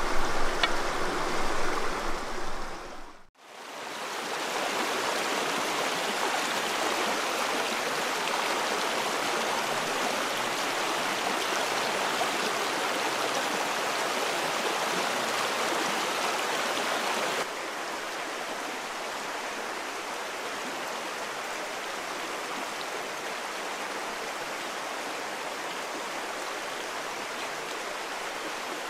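Small rocky trout stream running over shallow riffles, a steady rush of water. It fades out briefly about three seconds in, then returns and steps a little quieter past the middle.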